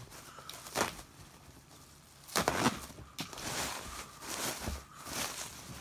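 Plastic bubble wrap crinkling and rustling in several irregular bursts as it is handled and folded around a packaged action figure, loudest about halfway through.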